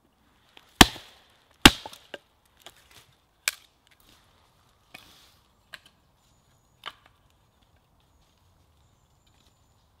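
Hatchet chopping small sticks of kindling on a log: two hard chops about a second apart, then several lighter wooden knocks.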